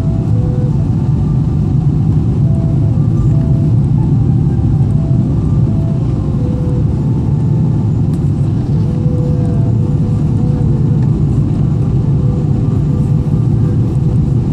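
Steady low roar in the passenger cabin of a Boeing 777-300ER on approach: engine and airflow noise from its GE90-115B engines. Faint short whining tones come and go through it.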